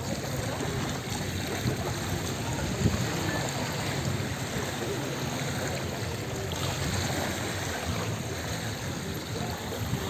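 Small sea waves lapping and washing on a pebbly beach, a steady wash.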